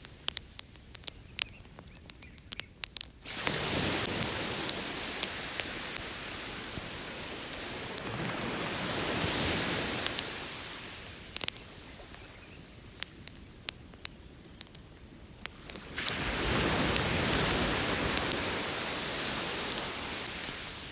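Ocean waves washing onto the beach in three surges: two come in suddenly, a few seconds in and again about three-quarters of the way through, and a softer one swells up midway. A campfire crackles with sharp pops throughout.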